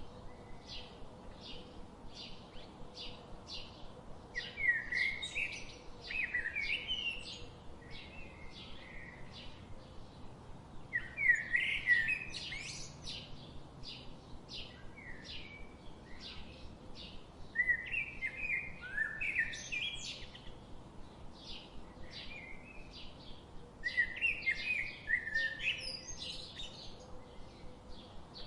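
Songbirds singing: one bird repeats short, high chirps several times a second throughout, while louder warbling song phrases come every few seconds, the strongest about a third of the way in. A faint, even hiss lies underneath.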